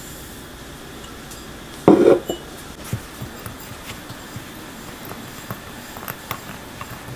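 A loud knock about two seconds in, then light, irregular clinks and scrapes of a metal utensil against a glass bowl as kinako and sugar are stirred together.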